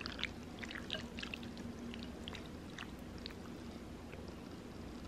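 Wooden chopsticks stirring thick curry sauce and udon noodles in a ceramic bowl: a quick run of small wet clicks and squelches that thins out after about three seconds.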